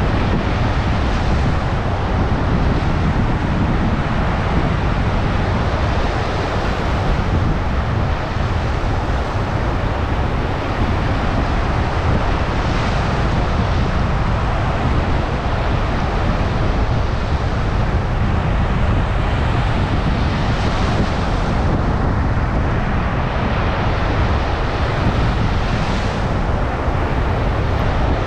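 Storm surf breaking on a beach in a steady loud wash, with strong wind rumbling on the microphone. Several larger waves swell up and hiss in over it.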